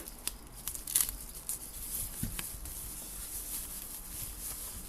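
Packaging rustling and crinkling as a speaker is unpacked, with a few sharp clicks in the first second and a soft thump about two seconds in.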